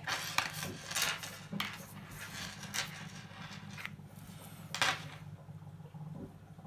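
A fine-tipped pen writing on a paper sticker in a planner: short scratchy strokes and light ticks as the letters are formed, over a low steady hum.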